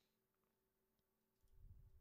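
Near silence: faint room tone, with a faint low-pitched sound in the last half second.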